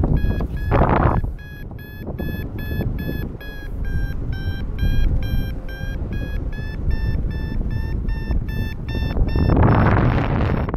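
Paragliding variometer beeping: a steady run of short high beeps, about three a second, the climb tone that signals the glider is rising in lift. Wind rushes over the microphone beneath it, swelling about a second in and again near the end.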